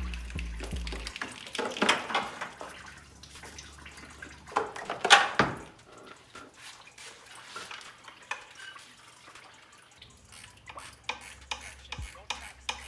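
Clicks, rattles and clatter of hands and tools disconnecting hoses and connectors in a car's engine bay, with a louder scraping rustle about five seconds in.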